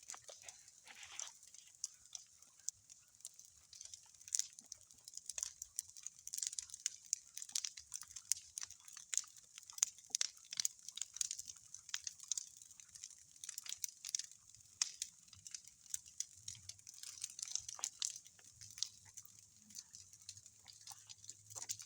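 Large bonfire crackling and popping: a dense, irregular run of sharp snaps from the burning wood. A faint low hum comes in about two-thirds of the way through.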